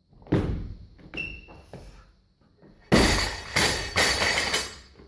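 A thud as the lifter drives the barbell up in the jerk. About three seconds in, a loaded barbell with rubber bumper plates is dropped to the floor and crashes, bouncing with metal clatter for about a second and a half.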